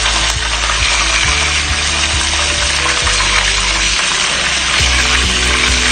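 A whole boiled chicken sizzling steadily as it deep-fries in a pot of hot oil, with background music playing underneath.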